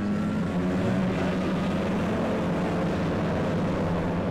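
Moto3 racing motorcycle engines running on track, a steady engine note with small rises and falls in pitch.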